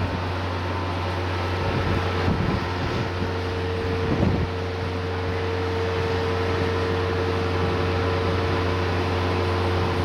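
A steady low mechanical hum with a faint higher tone over an even hiss, with a few brief surges about two and four seconds in.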